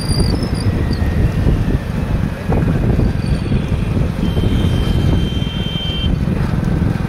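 Steady low rumble of a slow-moving vehicle carrying the microphone, mixed with wind buffeting the microphone.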